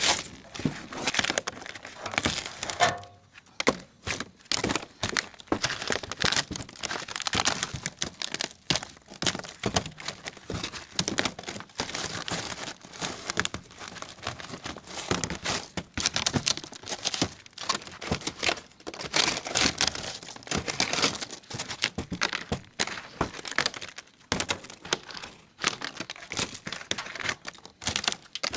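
Old, cracked tar coating being scraped off a camper's roof: a busy run of short, irregular scraping strokes as the coating breaks away.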